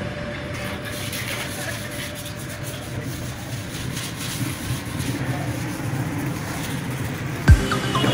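Outdoor background noise: a steady low rumble with a hiss over it, and one sharp low thump near the end.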